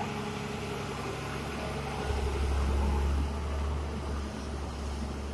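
A heavy construction machine's engine running with a steady low drone, swelling louder for about a second starting about two seconds in.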